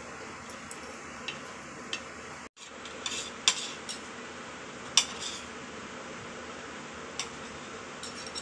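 A spoon and fork clinking and scraping against a plate and bowl while eating, a few sharp clinks, the loudest about three and a half and five seconds in, over a steady background hiss. The sound drops out for a moment about two and a half seconds in.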